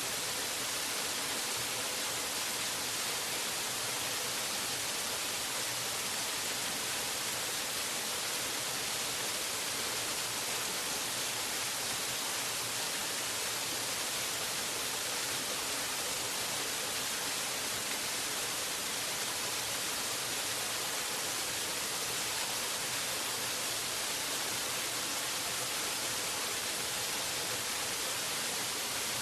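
Waterfall: a steady, unbroken rush of falling water, bright and hissing.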